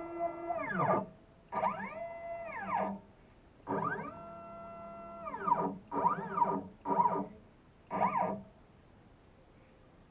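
CNC Shark HD4 router's stepper motors whining as the gantry moves, pitch rising, holding and falling with each move, in about six short moves with brief pauses between them.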